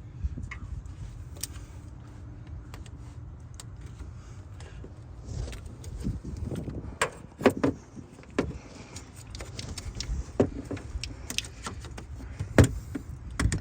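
Scattered clicks, knocks and clinks of hands and tools working on plastic clips, connectors and metal parts, over a steady low hum. A few sharp knocks stand out, the loudest near the end.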